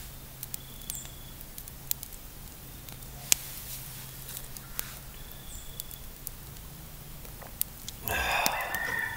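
Campfire crackling with sparse sharp pops. About eight seconds in comes a louder clatter of metal, a camp cup being set on the stove grate beside the pot.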